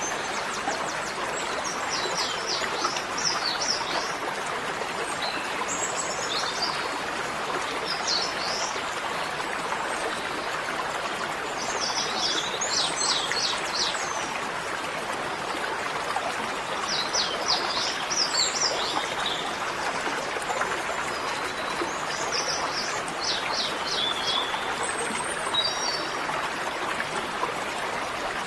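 Small birds chirping in quick bursts of rapid high notes that recur every few seconds, over a steady rushing noise like running water.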